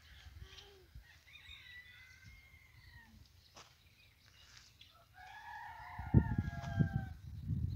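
A rooster crowing: a faint call early on, then a louder, long drawn-out crow about five seconds in. Low rumbling noise comes in under it near the end.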